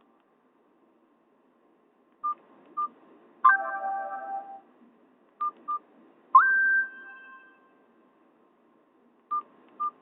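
Short electronic phone tones played through a Nokia 216's small speaker, Nokia N78 ringtone sounds. After about two seconds of silence, pairs of quick beeps come three times. The first two pairs are each followed by a tone about a second long: first a chord of several notes, then a single note that slides up and holds.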